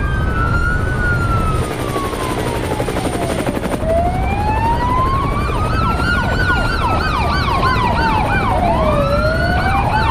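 Police car sirens: a slow wail rising and falling over about three seconds at a time, joined from about the middle by a faster yelp sweeping several times a second, over steady road noise.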